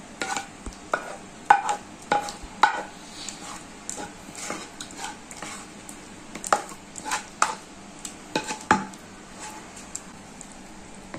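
A utensil scraping and knocking against the inside of a metal kadai, in irregular strokes, as thick kheer (rice pudding) is scraped out into a bowl. Several of the knocks ring briefly like metal.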